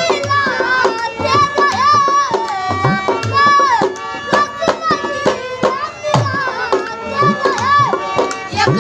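Live Indian folk song accompaniment: a dhol beats a quick rhythm, its bass strokes sliding up in pitch, under a harmonium's held notes and a melody that bends and wavers.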